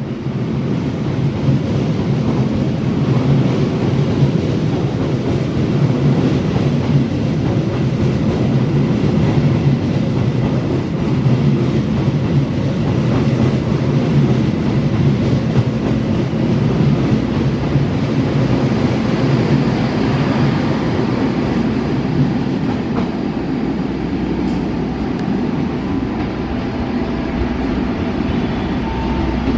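A locomotive-hauled passenger train's stainless-steel coaches rolling past close by: a loud, steady rumble of wheels on the rails, easing slightly over the last few seconds as the tail of the train draws away.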